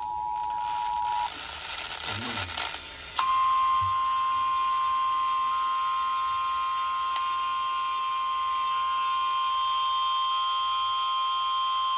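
Emergency alert tones received over the radio. The end of the two-tone EAS attention signal stops about a second in, followed by a short burst of static. Then a single steady warning alarm tone of about 1 kHz sounds for about nine seconds, the NOAA Weather Radio alert that comes before a flash flood warning is read.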